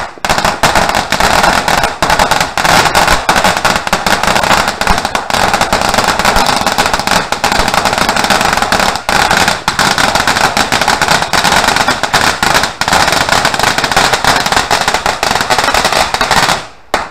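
A long string of firecrackers going off in a dense, continuous rapid-fire crackle of bangs. It stops abruptly just before the end.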